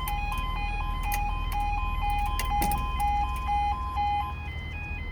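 Level crossing audible warning sounding its two-tone yodel, alternating between a lower and a higher pitch about twice a second, with a second higher-pitched alarm alternating alongside it; the lower pair stops near the end.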